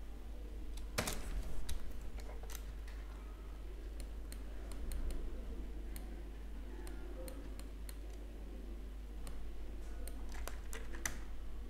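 Scattered clicks of a computer mouse and keyboard: middle-button presses, scroll-wheel ticks and the Shift key, with a louder click about a second in and a run of clicks near the end, over a steady low hum.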